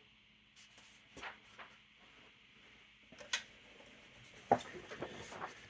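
A few scattered clicks and knocks from hands handling an electric typewriter's plastic body and parts, the sharpest about four and a half seconds in.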